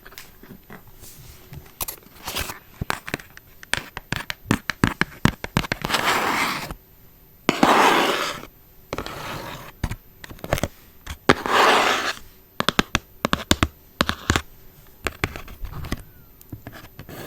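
Gift packaging being handled and opened close to the microphone: crinkling, scraping rustles with many sharp clicks and taps, and three longer rustles partway through.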